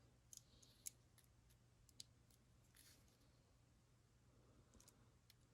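Near silence with a few faint, sharp clicks scattered through it, the clearest about a second and two seconds in, over a low steady hum.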